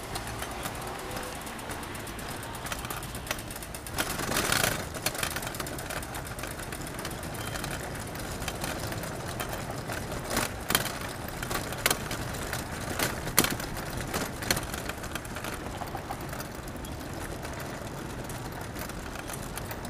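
City street ambience: steady traffic noise, with a louder swell about four seconds in and scattered sharp clicks and knocks around the middle.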